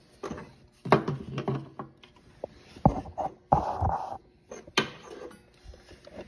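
Plastic fuel pump assembly being handled: irregular sharp clicks and knocks of the plastic parts, with a short rubbing scrape about three and a half seconds in.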